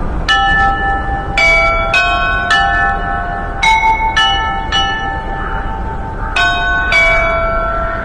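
Bells of several different pitches chiming, struck in short runs of two or three notes about half a second apart with pauses between, each note ringing on over the next, above a steady low rumble.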